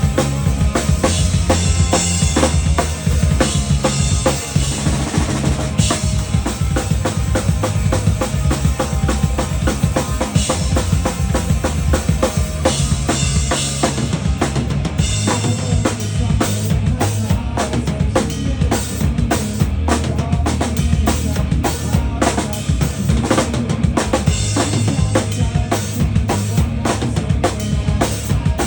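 A live band playing a song, with the drum kit loudest in the mix: a driving beat of kick drum, snare and cymbals over steady low bass notes. About halfway through, the cymbal wash drops back and the separate drum hits stand out more.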